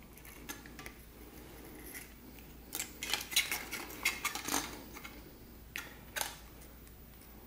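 Light clicking and rattling of a flat-screen TV's circuit boards, plastic speaker housing and cables being handled, a dense cluster of clicks in the middle and two sharper clicks shortly after.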